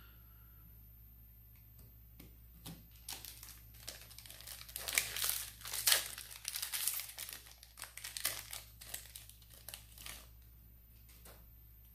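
Foil wrapper of a Magic: The Gathering Modern Horizons 2 collector booster pack crinkling and tearing as it is opened by hand. The crackling starts about two seconds in, is busiest around the middle, and dies away near the end.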